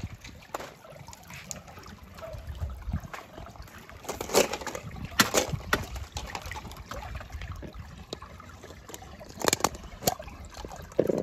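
Water sloshing and trickling, with a few sharp splashes about four and five seconds in and again near the end.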